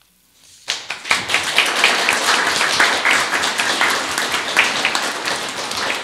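A brief hush, then an audience breaks into applause less than a second in, steady clapping from many hands.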